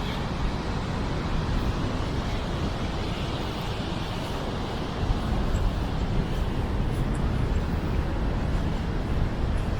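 Steady rushing of a river waterfall, an even noise with a heavy low rumble that does not change.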